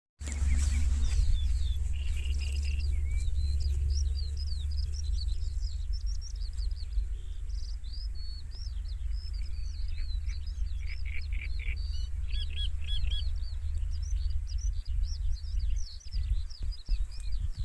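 Many small birds chirping and singing at once in a dense, continuous chorus of quick chirps and trills, over a steady low rumble that turns uneven with a few low bumps near the end.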